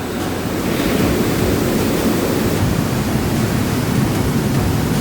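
Loud, steady rushing of a mountain stream falling as an underground waterfall over rock in a cave, heard from close below it.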